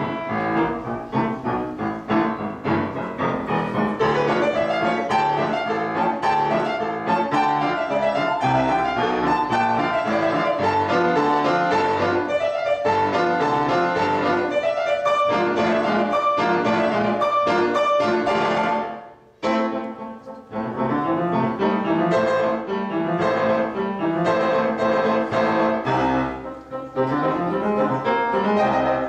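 Grand piano played as a solo performance piece, in quick runs of notes, with a brief pause about two-thirds of the way through before the playing resumes.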